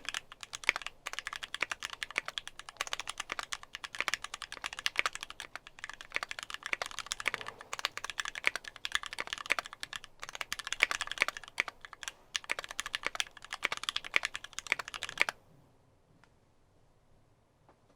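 Mechanical keyboard with lubed Gateron Ink linear switches on ThicThock MP 68 g springs, an aluminum plate and GMK keycaps, typed on fast and continuously, with a few short pauses. The typing stops about three seconds before the end.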